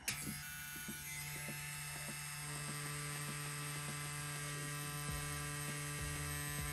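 CNC Q6 rotary tattoo pen running with a steady electric hum as its needle works lines into silicone practice skin.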